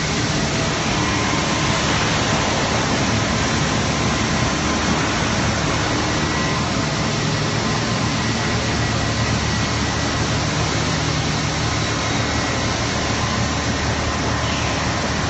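Loud, steady din of running factory machinery on a plastics thermoforming line: an even wash of noise with a faint steady hum and a thin whine held underneath.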